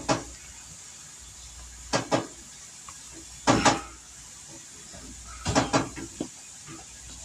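A few sharp knocks and clatters of kitchen utensils and dishes, several coming in quick pairs a second or two apart, over a faint steady hiss.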